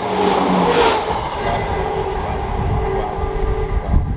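Passenger train running past along a station platform at speed: a steady rumble of carriages and wheels with a level whine over it. A short sharp knock near the end.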